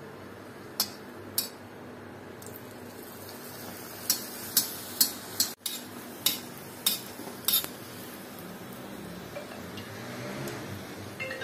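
Puris deep-frying in hot oil in an iron karahi with a steady sizzle, while a metal slotted spatula taps and scrapes against the wok. There are two sharp taps about a second in, then a quick run of about seven more between four and seven and a half seconds in.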